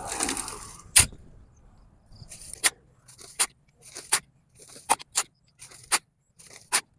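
Soil being sifted on a large iron-framed wire mesh screen with 2 cm openings. A scrape of soil opens it, with a sharp knock about a second in. Then comes a steady rhythm of strokes a little faster than one a second, each a brief rustle of soil ending in a sharp metallic clack.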